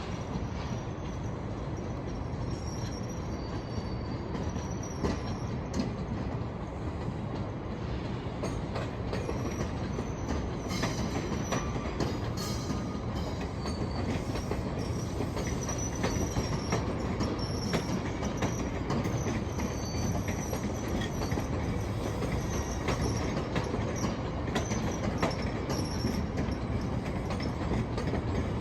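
Passenger train rolling by: a steady rumble of wheels on rail, with faint high-pitched wheel squeals coming and going and scattered clicks.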